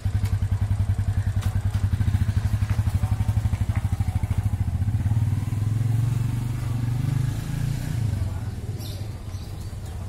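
A small engine running with a rapid, even beat, easing off and growing quieter in the last couple of seconds.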